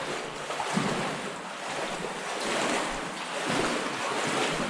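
Wading through water: a steady sloshing and splashing that swells and eases with each stride.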